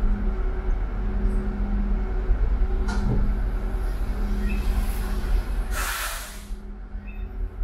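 Steady low vehicle rumble with a hum that pulses about once a second. A click comes about three seconds in, and a short burst of hissing about six seconds in.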